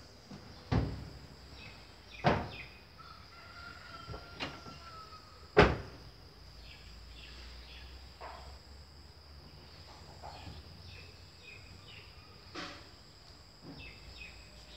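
Outdoor ambience: birds chirping and calling over a steady high drone, broken by several sharp knocks, the loudest about five and a half seconds in.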